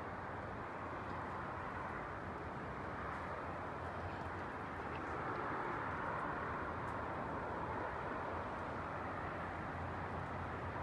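Strong wind gusting outdoors: a steady rushing noise that swells a little about five seconds in, with a low rumble beneath.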